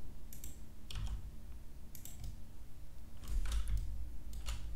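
Computer keyboard key presses and mouse button clicks, a handful of scattered clicks spread across a few seconds.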